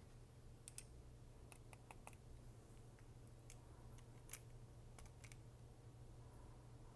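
Faint small clicks and ticks of a stripped-down Smith & Wesson 642 J-frame revolver with its side plate off, as the frame and exposed action parts are turned over in the hands; one sharper click about four seconds in, over a low steady hum.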